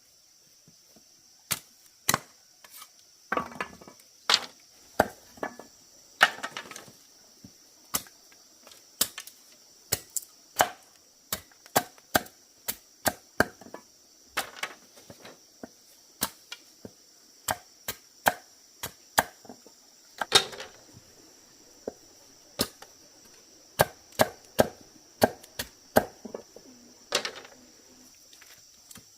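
Repeated sharp chopping strikes of a blade on bamboo, irregular, about one or two a second, with a steady high insect drone behind.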